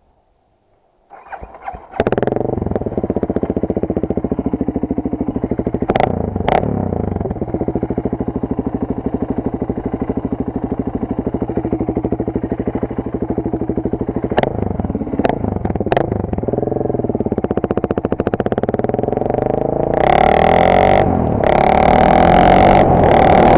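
BMW G650X moto's single-cylinder engine starting about a second in, catching and idling steadily with a few short clacks over it. Near the end the revs rise and it gets louder as the bike pulls away.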